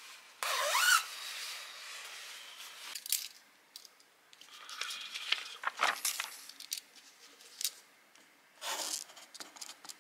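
Short bursts of rustling and scratching: clothing and a face mask handled, then printed paper notes shuffled and a pen writing on them. The loudest burst comes about half a second in.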